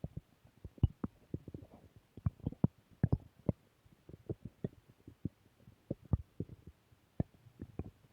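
Human stomach growling: a continuous run of quick, irregular gurgling pops and clicks, with a few sharper, louder ones standing out.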